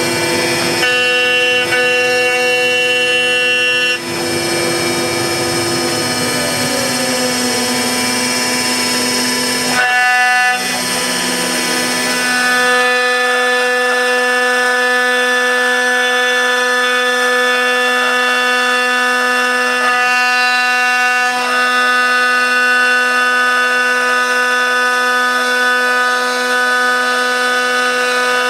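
CNC router spindle running with a 1/4-inch down-cut bit cutting through dense laminated Karri hardwood: a steady whine made of several tones, whose mix changes a few times, with a brief dip about ten seconds in.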